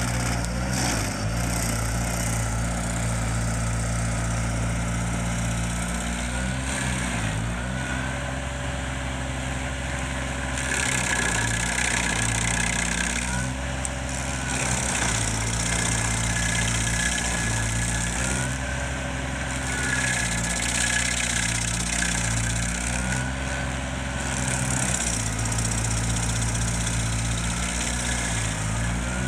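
Vermeer SC552 stump grinder running hard while its cutter wheel grinds a tree stump into chips. The engine note dips and recovers every few seconds under the load of the cut, with a hiss of grinding and flying chips that swells at times.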